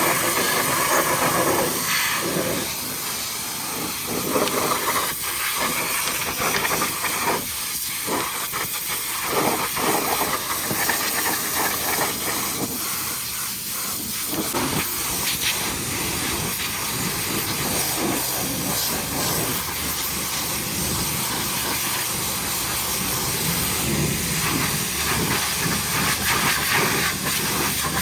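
High-pressure washer jet spraying water onto a truck: a continuous hiss whose texture keeps shifting as the jet moves over the surfaces.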